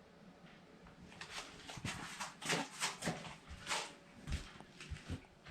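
Rustling and crunching in dry leaf litter and undergrowth: a quick run of crackles about a second in, then a few soft low thumps near the end.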